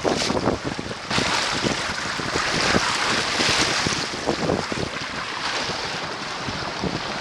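Bow wave rushing and splashing along the hull of a Mudhen sailboat under sail in about 15 mph of wind, with gusts buffeting the microphone.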